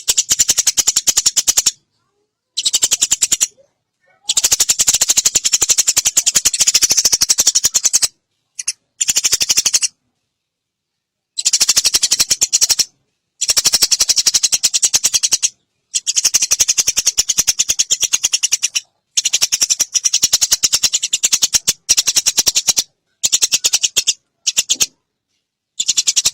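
Eurasian tree sparrow giving long, very fast rattling chatter calls, in bursts of one to four seconds broken by short silent gaps.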